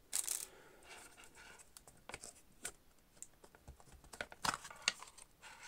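Unboxing handling noise: a brief crinkle of plastic packaging at the start, then scattered light clicks and taps as a rigid black box's insert is pulled out by its ribbon tab. Two sharper clicks come near the end.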